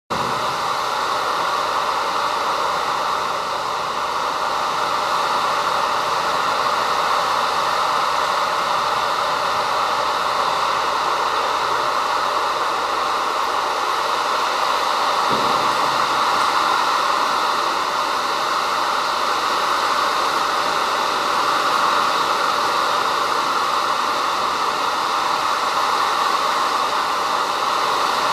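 Heavy downpour: hard rain falling steadily on trees, bushes and ground, an even hiss throughout.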